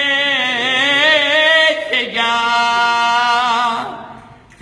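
A man singing unaccompanied, holding two long notes with vibrato. There is a brief break about two seconds in, and the second note fades out near the end.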